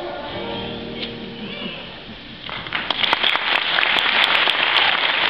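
The last held notes of a children's Christmas song die away, then an audience breaks into applause about halfway through, many people clapping at once.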